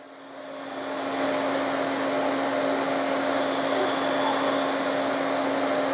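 Cooling fan of the welding setup whirring steadily with a low hum after the MIG arc has stopped. It builds up over about the first second, then holds level.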